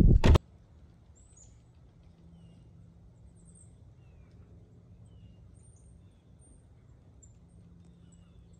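Faint birds chirping, with scattered short high chirps and a few short falling whistles, over quiet rural background hiss. A sharp clunk from the wooden cabin door comes at the very start.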